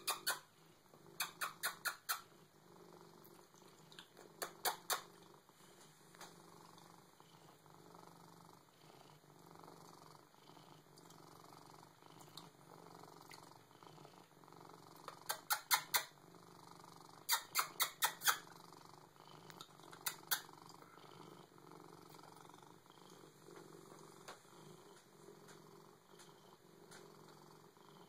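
Siamese cat purring steadily. Several short runs of quick sharp clicks, four or five in a row, come about a second in, around five seconds in, and three more times in the second half.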